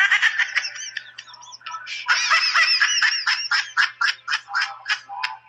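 A young man's loud, high-pitched hysterical laughter, wavering in pitch at first, then breaking into quick pulses of about four or five a second.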